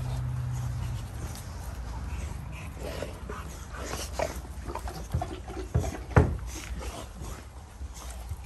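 Two American bully dogs tugging against each other on a rope toy, making a run of short, sharp sounds, the loudest just after six seconds in. A low steady hum is heard in the first second.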